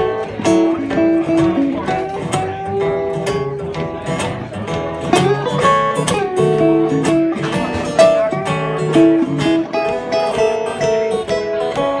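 Live acoustic blues played on acoustic guitars, an instrumental passage with plucked and strummed notes and a few bent notes about halfway through.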